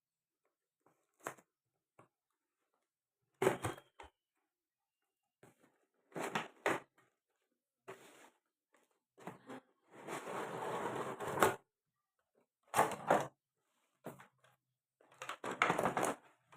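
Packaging being handled during an unboxing: rustling and rough handling noises in several short bursts, with one longer stretch about ten seconds in.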